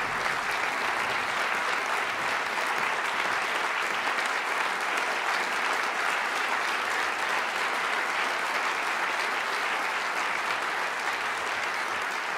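Audience applauding steadily: many hands clapping at once in a dense, even wash.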